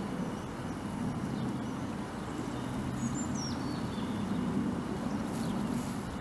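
A steady low background rumble, with a bird's brief call of a few falling high notes about three seconds in.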